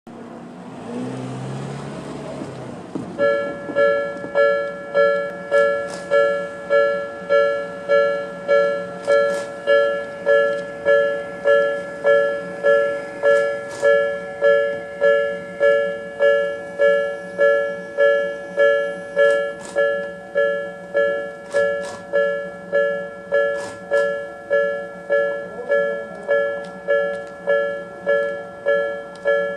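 Japanese level-crossing warning alarm, the electronic 'Tobu sound B' type at its slow tempo, starting about three seconds in and ringing a steady, evenly paced two-tone ding: the crossing is signalling an approaching train.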